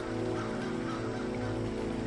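Background music: a sustained droning chord of many steady tones held without a break.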